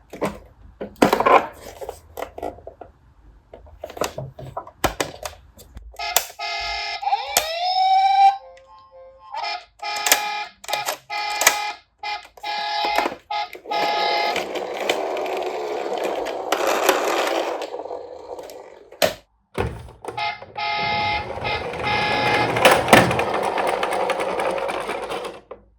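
Toy police vehicles being played with: plastic clicks and knocks, short bursts of electronic toy sound-effect tones with a brief rising glide, and two long stretches of plastic wheels rattling as the toys roll.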